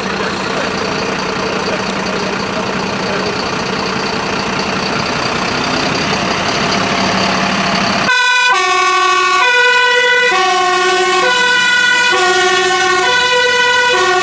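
Mercedes-Benz fire engine's diesel engine running as the truck pulls away. About eight seconds in, its two-tone siren switches on, alternating between two notes a little under once a second.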